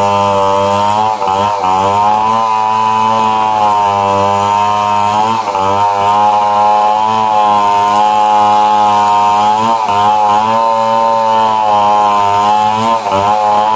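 Stihl 070 two-stroke chainsaw running at high revs under load as it cuts into a tree, its pitch dipping briefly now and then as the chain bites.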